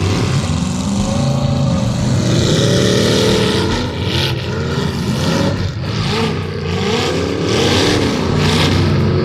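Demolition derby cars' engines revving, several at once, their pitch repeatedly rising and falling.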